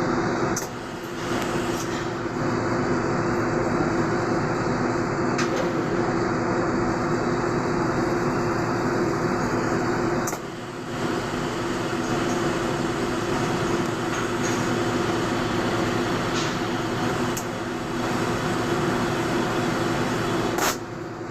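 Welding running steadily: a continuous hissing buzz over a steady hum. It drops off briefly about half a second in and again around ten seconds in, as if the arc broke and was struck again.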